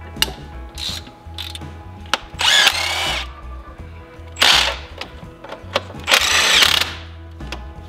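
Power tool on an exhaust manifold nut, in three short runs of about half a second to a second each, its motor whine rising and falling in pitch, with light metal clicks between runs.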